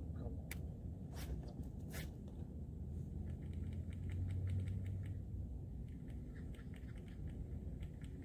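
Light irregular clicking and ticking from a fishing reel being cranked and the rod being worked during a retrieve, over a low steady rumble. Three sharper clicks come in the first two seconds, then a run of smaller ticks.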